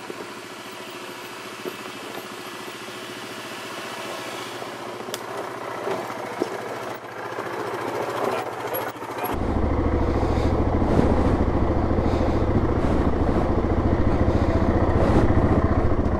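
Yamaha Grizzly 700 ATV's single-cylinder engine running slowly down a steep trail in four-wheel-drive low, growing louder as the quad approaches and passes. About nine seconds in, the sound switches suddenly to a close onboard recording, where the engine is loud and steady.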